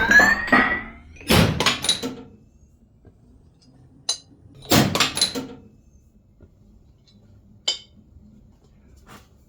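Metal-on-metal clanks and scrapes of a workshop press forcing a heated ring off the scissor-gear shaft of a Toyota 3UZ-FE exhaust camshaft. A short rising squeal at the start, then two more clanks with a ringing tail, and two sharp clicks.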